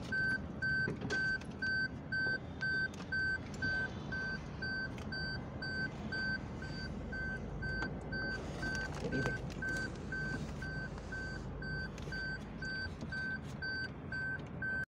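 Steady electronic beeping, one high tone repeating about three times a second without a break, with scattered clicks of hard plastic dashboard trim being handled.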